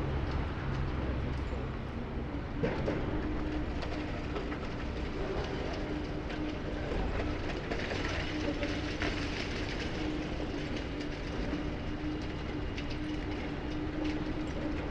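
Demolition excavator working on a wall: steady engine and hydraulic drone with a constant whine, amid the clatter and scrape of breaking masonry, with one sharper knock about two and a half seconds in.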